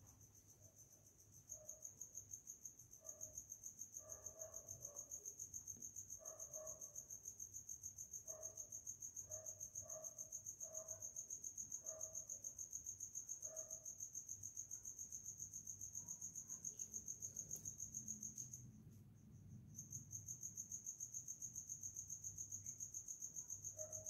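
A cricket chirping steadily in a fast, even pulsing trill. It breaks off for about a second about three-quarters of the way through, then carries on.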